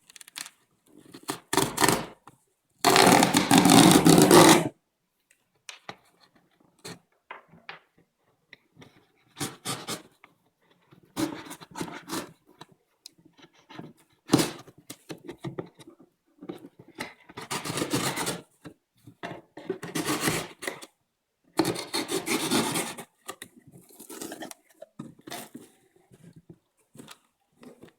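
Cardboard box and packaging handled and opened: irregular rubbing and scraping bursts, the longest and loudest a scrape of about a second and a half near the start.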